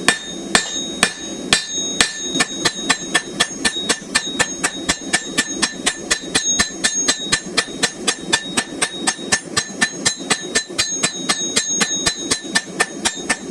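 Blacksmith's hand hammer striking hot steel on an anvil in a steady run of blows, drawing down the edge of a knife blade. The blows come slowly at first, then about four a second, each with a bright metallic ring.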